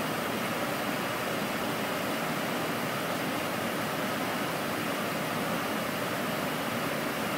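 Steady, even hiss of flight-deck noise in an Airbus A310 in flight: air conditioning and airflow around the cockpit.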